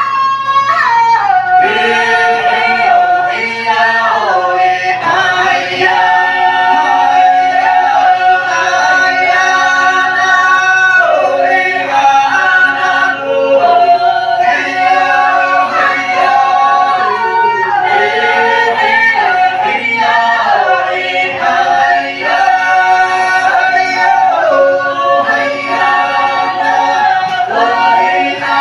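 A Bunun troupe of men and women singing together in several-part harmony, voices holding long notes and sliding between pitches.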